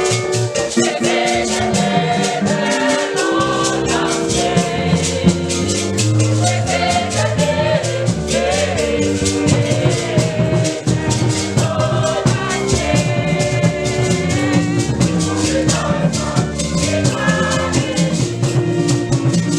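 Gospel music: a choir singing over a fast, steady rhythm of shaken rattles.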